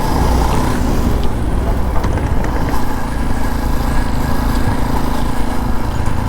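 Motorcycle on the move: steady wind and engine noise on the rider's microphone, with an engine hum holding steady in the second half and a few faint pops or ticks about two seconds in.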